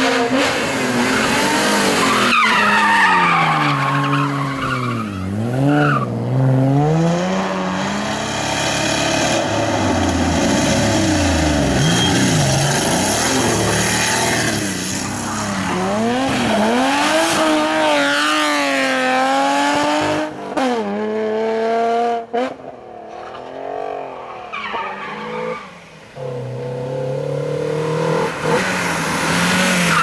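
Rally car engines revving hard, rising and falling in pitch again and again, with tyre squeal and skidding as the cars are drifted and spun. A BMW E30 rally car is among them. The sound eases off for a few seconds about two-thirds of the way through.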